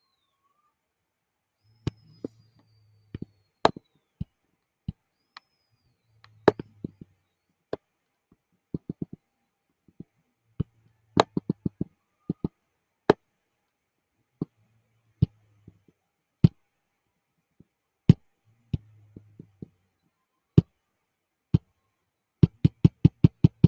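Keys or buttons clicking as they are pressed one at a time at irregular intervals, with a quick run of presses near the end, as when a program is keyed in.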